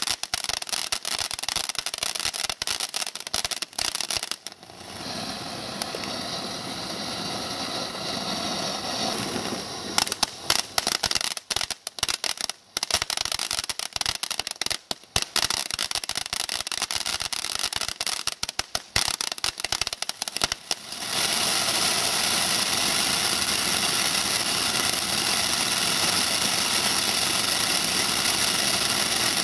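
Winda Acrobatic Monkey ground firework cake burning: sparking pieces hissing, with stretches of dense popping and crackling. About two-thirds of the way in, a loud, steady gush of sparks takes over, as a gold fountain.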